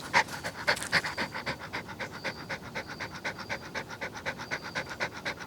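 Pomeranian dog panting quickly and evenly, about seven breaths a second, with a couple of stronger puffs in the first second.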